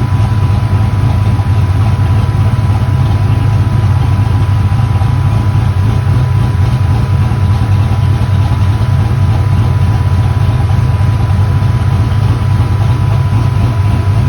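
A motor or engine running steadily: a loud, even low hum with a thin high tone held over it, unchanging throughout.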